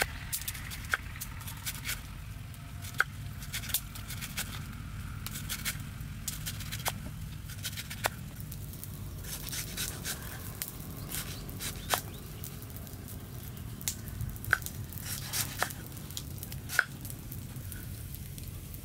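Knife slicing through stalks on a wooden chopping board: separate sharp taps at an uneven pace, closer together around the middle, over a steady low rumble.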